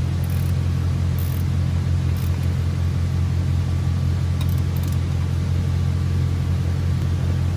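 A steady low rumble that holds an even level and does not change, with a few faint light ticks over it.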